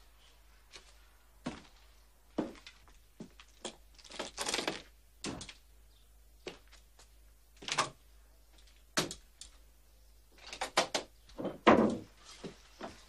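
A rifle butt knocking against wooden stairs, with footsteps on the boards: a dozen irregular knocks and thumps, one longer scraping knock partway through, and the loudest knocks bunched near the end.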